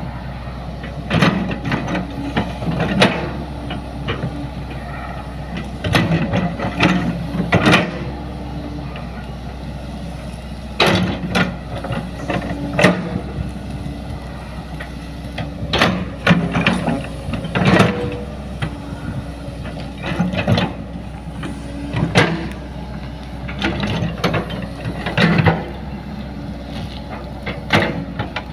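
Hydraulic excavator levelling soil: its diesel engine runs with a steady low hum while the bucket and arm make irregular clanks and rattles every second or two as they scrape the ground.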